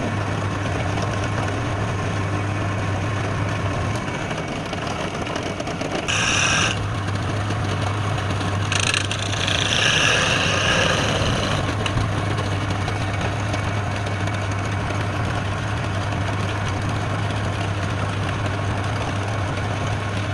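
Wood lathe running with a steady hum. Twice it gets briefly louder with a higher, hissing noise: once about six seconds in, and again around nine to eleven seconds.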